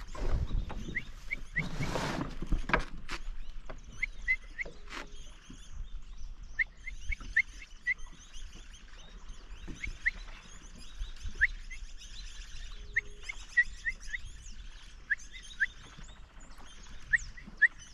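Wild birds chirping, with many short high notes repeated irregularly over a faint chorus of other birdsong. About two seconds in there is a brief rush of noise.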